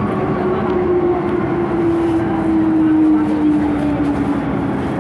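MTR M-Train electric multiple unit running, with its steady rumble and a single motor whine that falls slowly in pitch, as the train slows.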